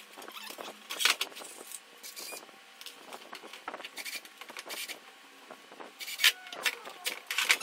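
A steel-tube chair frame and its wooden seat shell handled on a wooden workbench: irregular scraping and rubbing with sharp knocks, the loudest about a second in and near the end.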